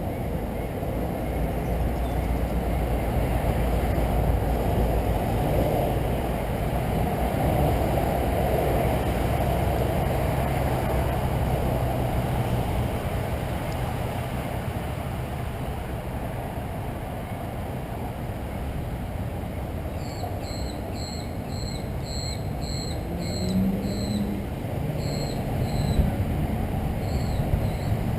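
Steady low outdoor rumble, like distant road traffic. About twenty seconds in, a bird starts calling in a string of short, high chirps, roughly one or two a second.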